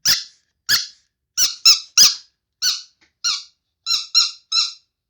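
Rubber carrot-shaped squeaky toy squeezed again and again: about ten short, high squeaks at an uneven pace, some in quick pairs, with silence between.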